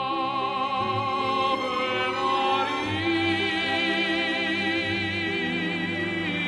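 Operatic singing with vibrato over orchestral accompaniment, starting abruptly just before and running steadily.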